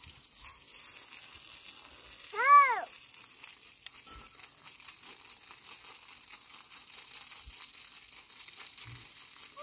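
A hose spraying water onto bare ground, a steady hiss. About two and a half seconds in comes one short, loud, high call whose pitch rises and falls.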